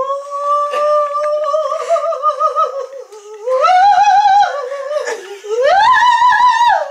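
A woman's voice singing loud, long held notes with vibrato: one note held for about three seconds, then the voice climbs to a higher held note about four seconds in and again about six seconds in.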